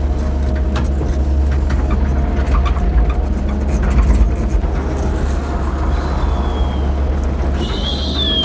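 Cat 308 mini excavator's diesel engine running steadily under work with a deep drone, with scattered light clicks and knocks. Near the end a thin high whine comes in and slides slightly down.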